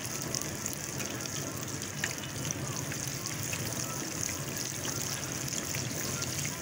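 Chicken chapli kababs sizzling in deep, bubbling hot oil in a wide shallow frying pan: a steady hiss with scattered light crackles.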